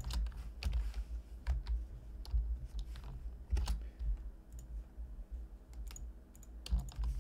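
Computer keyboard keys tapped irregularly, a single key or a short run at a time, over a low steady hum.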